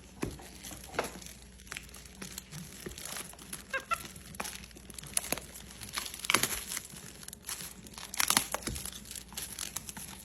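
Packaging being rummaged and unwrapped: irregular crinkling and tearing with scattered crackles, loudest in bursts about six and eight seconds in.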